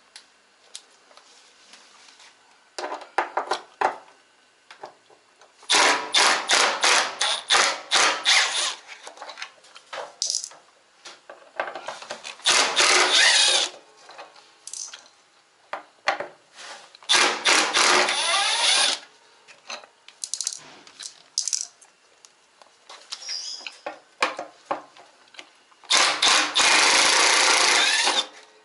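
Power drill-driver run in repeated bursts of one to three seconds, backing screws out of a washing machine's casing, with quieter pauses between bursts.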